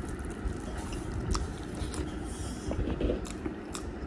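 A person eating with the hands: chewing and mouth sounds with a few sharp smacking clicks, over a steady low background rumble.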